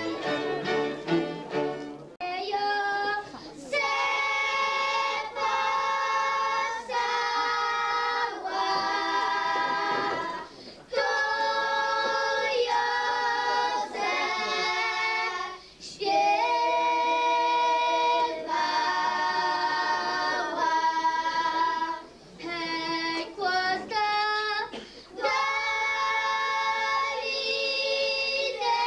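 A band of three fiddles and a cello playing, cut off abruptly about two seconds in. Then a group of girls sings together without instruments, in phrases with short gaps between them.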